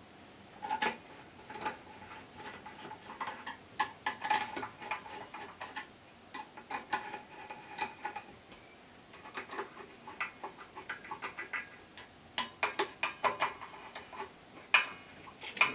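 Small screwdriver driving the little screws of a lathe's power switch back into place: a run of light, irregular clicks and ticks, with brief clusters of quicker clicks near the end.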